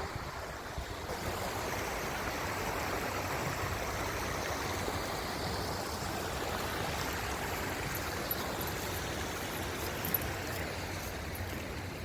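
A small waterfall on a river, water pouring and splashing steadily over the drop.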